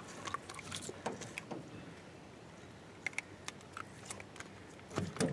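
Faint scattered clicks and rustles of a caught walleye being handled in a boat, with a couple of louder knocks near the end.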